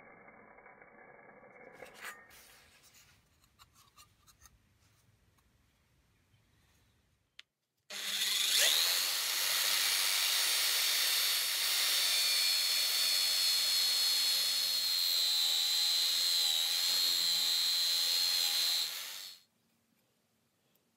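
A power tool's spinning brush wheel scrubbing rust off a hole punch's steel base plate: a steady rasping whir with a high whine over it. It starts suddenly about eight seconds in and stops about eleven seconds later.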